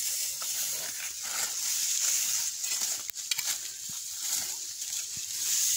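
Grass and dry fallen leaves rustling and crackling in short irregular bursts as someone moves through the undergrowth, over a steady high hiss.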